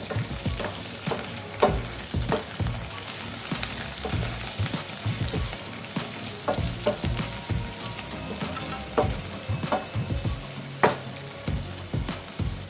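Food frying in a pan with a steady sizzle, stirred with a spatula that knocks and scrapes against the pan at irregular moments, two knocks louder than the rest, one early on and one near the end.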